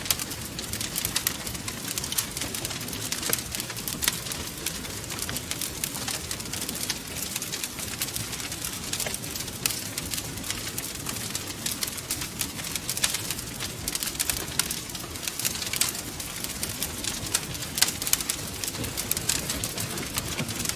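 Wood fire crackling, with frequent irregular pops and snaps over a soft steady hiss.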